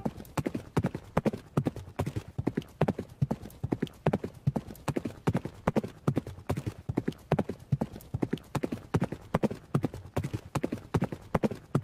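Horses' hooves galloping on ground, a fast, steady run of hoofbeats.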